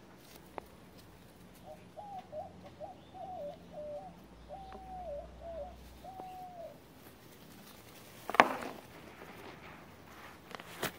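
A bird calling in the background: a series of about eight short, clear, whistled notes over some five seconds. About eight seconds in comes a sharp crackling knock, the loudest sound, with a smaller one just before the end.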